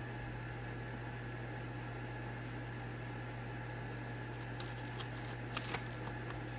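Steady low hum with room noise, and a handful of light clicks of buttons being pressed on a plastic kids' alarm clock from about four and a half to six seconds in.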